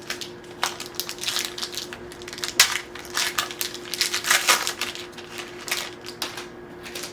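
Foil wrapper of a Magic: The Gathering collector booster pack crinkling and tearing as it is opened by hand: a run of irregular crackles, thickest in the middle.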